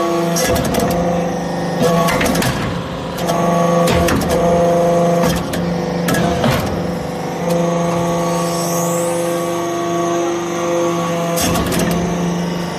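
Hydraulic metal-chip briquetting press at work: its pump runs with a steady hum, and the hum turns rougher and noisier several times as the press cycles. Sharp metallic knocks come in clusters through the cycle.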